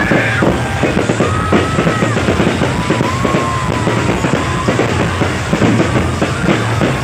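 Fireworks popping and crackling in rapid succession, mixed with loud, drum-heavy music.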